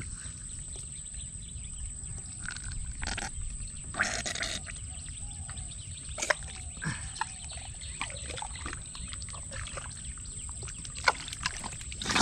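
Hands and arms digging through wet, waterlogged mud, with irregular squelches and splashes of muddy water. A thin steady high-pitched whine runs underneath.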